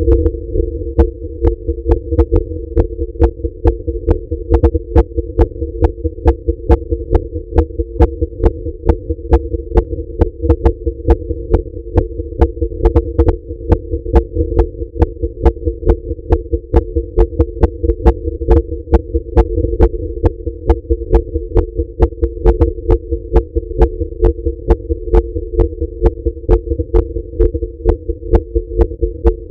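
A woman's heart beating fast while she is at rest: an unbroken, quick, even run of thudding beats. A steady hum runs underneath.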